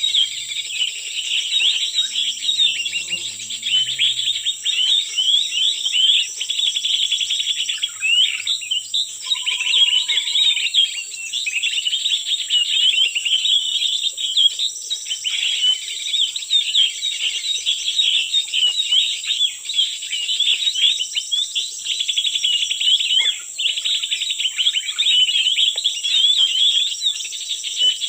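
Dense, unbroken high chirping and twittering of small birds, with a steady high-pitched drone running beneath it.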